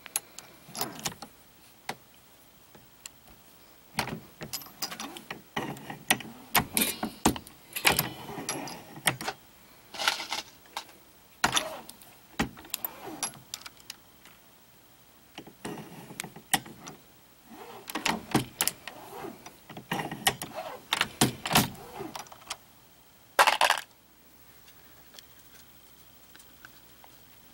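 Irregular metallic clicks, clinks and rattles of brass 9mm cases and parts being handled at a Lee Classic Turret reloading press, with the loudest clatter shortly before the end.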